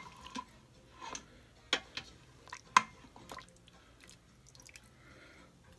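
A long-handled spoon clinking against the stainless steel inner pot of an Instant Pot, with broth dripping and splashing as cooked potatoes are scooped out. The clinks come every half second or so for the first three seconds, then it goes quieter.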